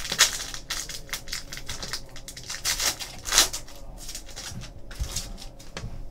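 Trading card packaging being torn and crinkled open and the cards handled, a run of irregular rustling swishes and crackles.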